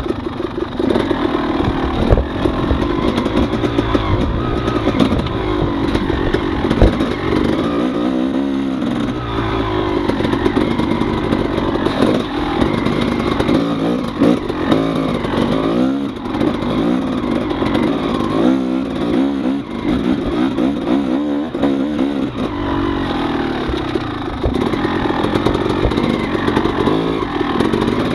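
Yamaha dirt bike engine ridden slowly through tight woods, its pitch rising and falling over and over as the throttle is worked on and off, heard from a camera on the rider's helmet chin. A few sharp knocks stand out, the loudest about two and seven seconds in.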